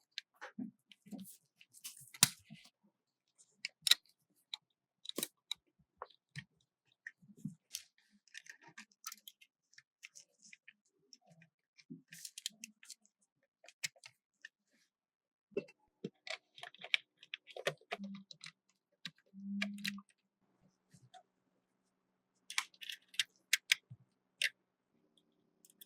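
Scattered light clicks and taps of small diecast model car parts being handled and fitted, with two brief low hums past the middle.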